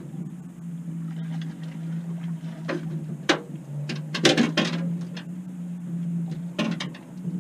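Steady low hum of a boat motor, with a few sharp knocks and clatters: a cluster about halfway through, the loudest, and another near the end, as an aluminium-framed landing net is grabbed and handled on the boat deck.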